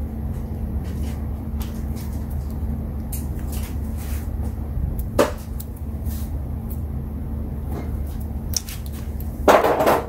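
Small handling sounds as bare wire ends are twisted and pushed into a plastic crimp butt connector: a sharp click about five seconds in and a short crackling rustle near the end, over a steady low hum.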